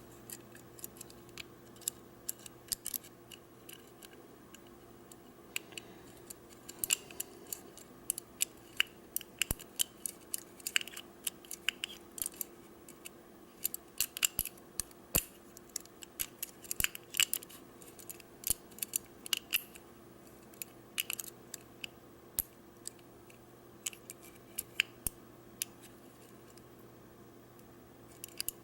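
Single pin picking of a round disc padlock: a Peterson hook pick and tension wrench working the pins, giving scattered small metallic clicks and ticks at irregular intervals, busiest in the middle and sparser near the end.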